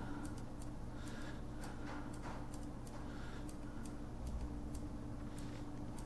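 Faint, fairly even clicking of a small tactile pushbutton pressed over and over, about two to three clicks a second, stepping the alarm-clock minutes up. A steady low electrical hum runs underneath.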